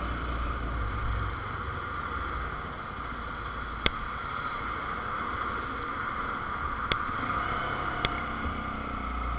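Dafra NH 190 motorcycle being ridden at low speed, its engine and wind making a steady rumbling hum, with three sharp clicks spread across the middle and end.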